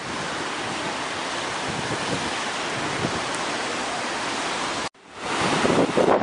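Steady rush of fast-flowing floodwater under a footbridge. About five seconds in the sound breaks off and comes back louder, with gusting wind on the microphone over the rushing water.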